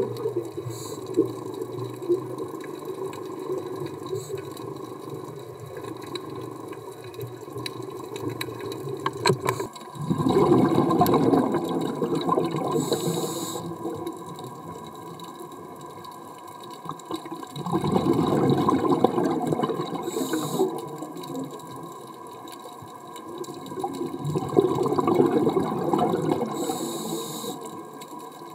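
Underwater sound of a scuba diver breathing through a regulator: a low steady water noise, then three rushes of exhaled bubbles about seven seconds apart, each ending in a short hiss.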